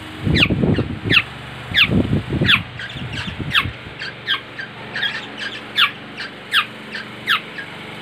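Young black-naped orioles calling over and over, short calls that each slide down in pitch, coming about every two-thirds of a second. A low rumble of movement sits under the first two or three seconds.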